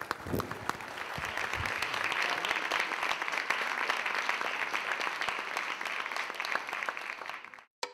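Audience applauding, a dense patter of many hands clapping that swells about a second in and cuts off abruptly near the end.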